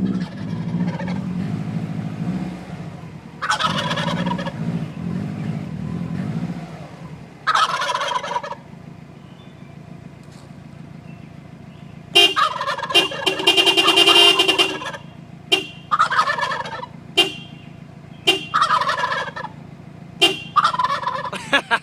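Wild turkeys gobbling: a couple of single gobbles, then from about halfway a long rattling burst followed by a rapid string of short gobbles. A car's engine runs steadily beneath.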